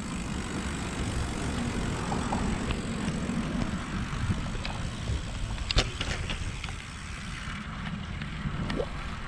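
Wind rushing over a GoPro's microphone on a moving road bike, a steady low rumble. A few brief sharp clicks or knocks come in the second half.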